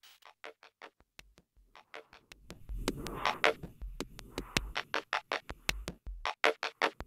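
Electronic percussion loop of dry clicks and ticks in a steady pattern from a sample library. It is sparse at first, then fills out with a low pulse beneath from about two and a half seconds in.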